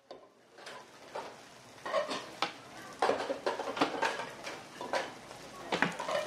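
Metal cooking utensils and dishes clattering: irregular clinks and knocks, a few each second, after a quiet first half-second.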